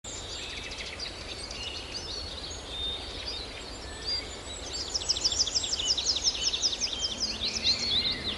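Birds singing and chirping over a steady low background noise, with a fast run of repeated high down-slurred notes, about four a second, in the second half.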